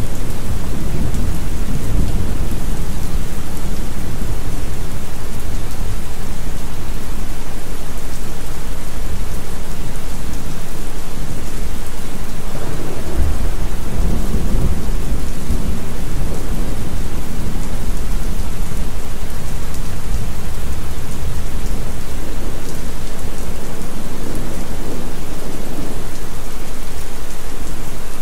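Recorded thunderstorm: steady, loud heavy rain with low thunder rumbles swelling now and then, the strongest a little past the middle.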